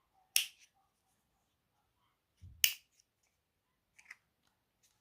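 Two sharp clicks about two seconds apart, the second with a soft thump just before it, then a few faint ticks near the end, as a Zippo lighter is handled in a snug-fitting plastic case.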